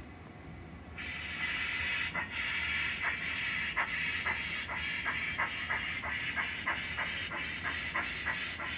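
Sound decoder in a model GWR pannier tank steam locomotive: a hiss of steam starts about a second in, then exhaust chuffs that quicken as the engine pulls away with its load.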